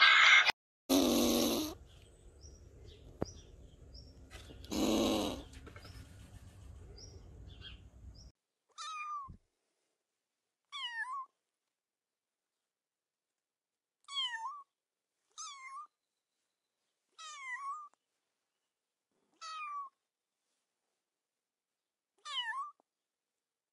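A kitten mewing seven times, each a short high cry that falls in pitch, spaced a second or more apart from about nine seconds in. Before that, two brief loud rushes of noise over a faint hiss.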